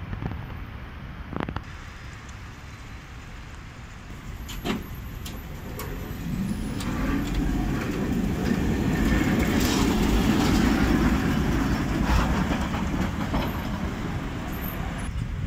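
A city tram rolls in close along the rails and slows toward a stop. The rumble of its wheels and running gear builds from about six seconds in and eases off near the end. Two sharp knocks come before it, at about one and a half and five seconds.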